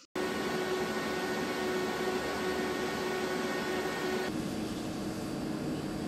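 Desktop PC case fans running at full speed, a steady rush of air. The first recording, of the stock Foxconn fans, carries a few faint steady whining tones over the whoosh. At about four seconds it cuts to the Noctua NF-A12x25 PWM fans at full speed, a similar even whoosh with the higher tones gone.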